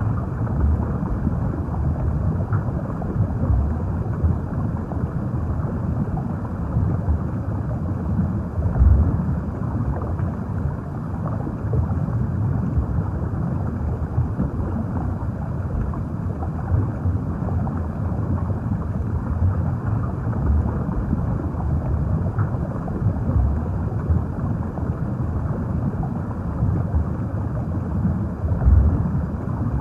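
Muffled underwater ambience: a steady low rumble and wash of water with no high sounds, swelling slightly about nine seconds in and again near the end.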